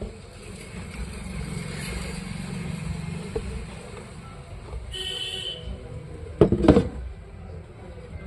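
A 20-watt electric horn giving one short toot of about half a second over a steady background hum, followed a second later by a few loud knocks as it is handled.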